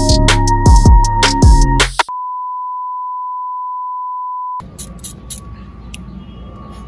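Music with a punchy beat that cuts off about two seconds in. A single steady electronic beep holds on one pitch for about two and a half seconds and stops suddenly, followed by faint background noise.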